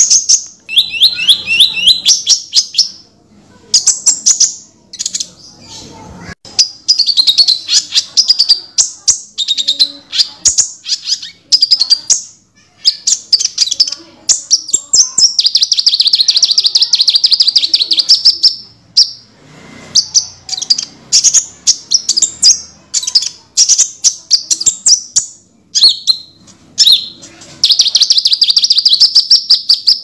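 Konin sunbird singing: rapid, high-pitched chirps and chittering trills in repeated bursts, with longer trills about halfway through and near the end.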